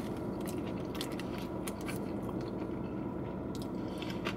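A person chewing a mouthful of fried chicken sandwich with the mouth closed: faint, irregular clicks over a steady low hum.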